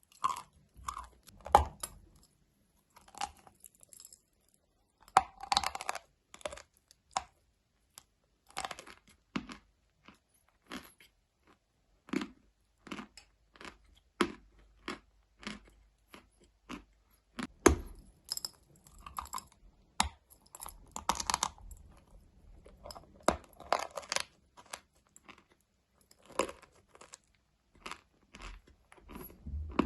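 A person biting and chewing a crunchy, dry, chalk-like block close to the microphone: irregular sharp crunches and crackles, some in quick clusters, with the loudest bites about a second and a half in, around five seconds in, and near eighteen seconds.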